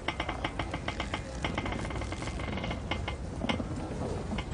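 Computer keyboard keys clicking in an irregular patter of many short taps, over a low steady room hum, with one sharper click at the very end.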